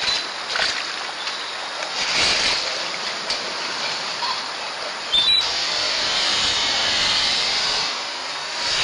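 Steady high hiss of rainforest ambience with rustles and scuffs in wet leaf litter as a two-toed sloth and an ocelot wrestle. A sharper scuff with a brief high squeak comes about five seconds in.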